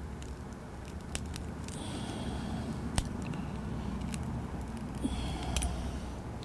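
Sharp ticks and crackles of shattered glass as a small slotted screwdriver pries under a cracked iPad screen, a handful of separate clicks, the sharpest about three seconds in, over a steady low hum.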